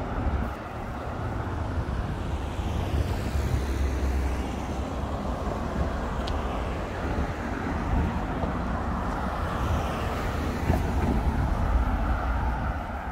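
Road traffic: cars passing by one after another on a busy road, over a steady low rumble.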